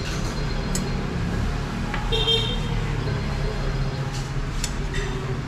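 Steady street traffic rumble, with a short vehicle horn toot about two seconds in and a few light clinks of a metal ladle against an aluminium soup pot.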